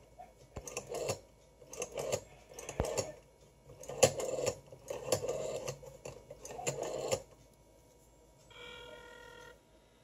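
Rotary telephone dial being wound and released several times in a row, each return spinning back with a rattle of clicks, as a number is dialled. Near the end a steady tone of several pitches sounds for about a second.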